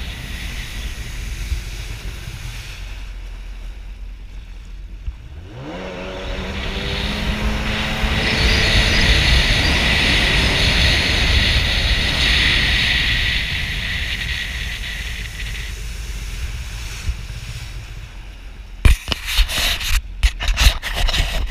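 Jet ski engine revving up, its pitch rising about six seconds in, then running hard with a loud rushing noise. Near the end comes a run of sharp knocks and thumps.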